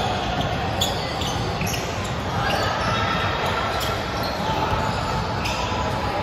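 Busy sports-hall din during indoor volleyball: scattered sharp knocks of volleyballs being hit and landing, over a steady background of voices echoing in the large hall.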